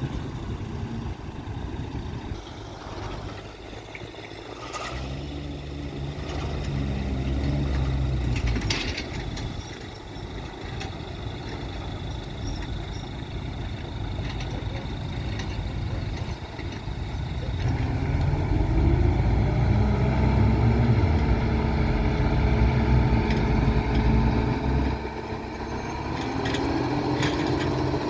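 Heavy diesel engines of construction vehicles running and working under load. The engine note swells twice, louder and longer the second time, then climbs in pitch near the end. A few short knocks are mixed in.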